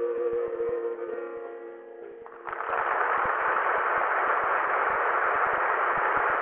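The song's last sung note, held with a slight waver, fades away. About two and a half seconds in, a steady wash of audience applause breaks out and carries on.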